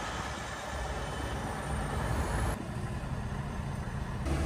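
Semi-truck driving, heard from inside the cab: steady engine and road noise with a low rumble. The sound changes abruptly about two and a half seconds in.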